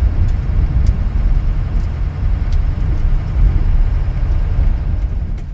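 Pickup truck driving on a country road, heard from inside the cab: a steady low rumble of engine and road noise.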